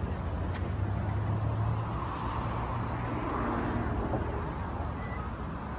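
Road traffic: a steady low engine rumble under the hiss of passing cars, swelling slightly about two to four seconds in.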